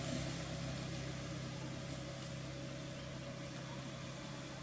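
A steady engine hum, slowly fading away.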